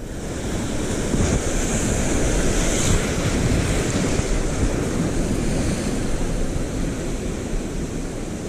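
Sea surf washing steadily against shore rocks, mixed with wind rumbling on the microphone.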